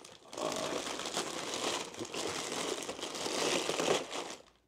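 Plastic packaging crinkling as a potted plant is unwrapped and handled, stopping shortly before the end.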